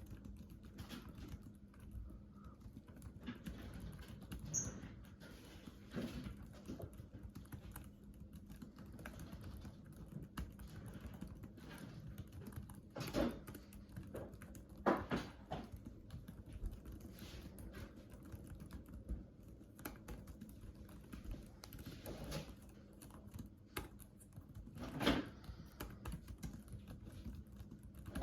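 Continuous typing on a computer keyboard: a rapid run of light key clicks, with a few louder strokes now and then.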